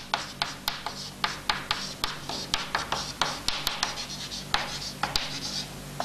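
Chalk writing on a blackboard: a quick series of sharp taps and short scratching strokes as the letters are formed, several a second.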